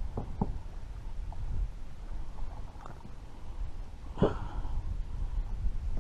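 Handling noise in a kayak: a low steady rumble, a couple of light knocks near the start and one sharp knock about four seconds in.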